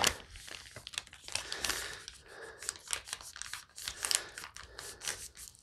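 Crinkling and rustling of a plastic ration drink pouch being handled and squeezed, a run of irregular crackles.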